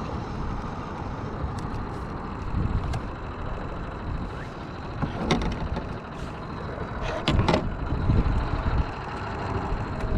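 Steady rumble and hiss of a boat trolling on open water, with sharp knocks and clicks about five seconds in and again around seven to eight seconds in.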